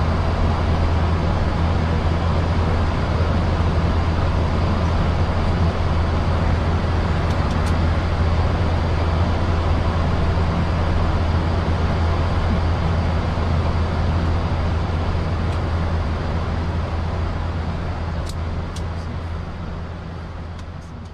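Steady flight-deck noise of a Boeing 737 climbing through cloud: a low hum under even airflow hiss, fading out over the last few seconds.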